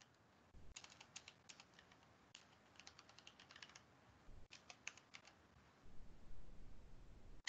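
Computer keyboard typing, faint, in four short runs of key clicks with pauses between them.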